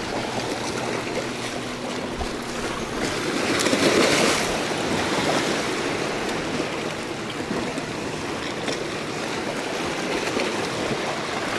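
Sea waves washing against the shore, a steady rush that swells louder about four seconds in.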